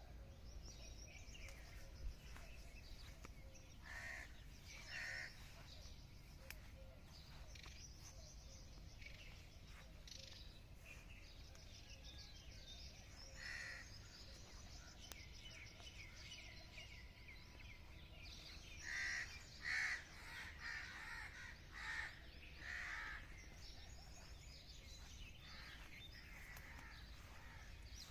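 Faint outdoor background with repeated bird calls: a pair about four seconds in, and a run of several louder calls about two-thirds of the way through.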